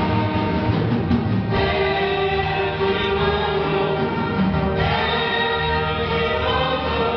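Church orchestra playing a slow evangelical hymn in held, sustained chords, with the harmony moving to new chords about a second and a half in and again near five seconds.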